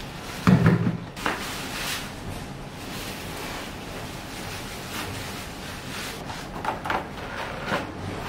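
Household rubbish tipped from a small bin into a black plastic bin bag: a loud thud about half a second in, then the plastic bag rustling and crinkling several times as it is handled and more waste is pushed in.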